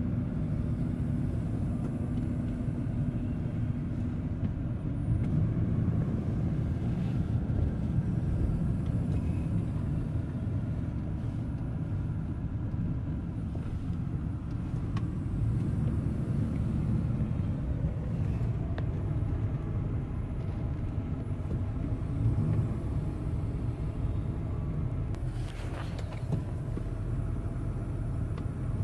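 Steady low rumble of road and engine noise heard from inside a moving car.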